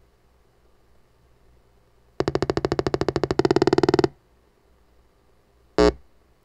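Old home-computer beeper sound effect: a rapid pulsing electronic buzz for about two seconds that steps up in pitch and loudness partway through, then one short beep about two seconds later.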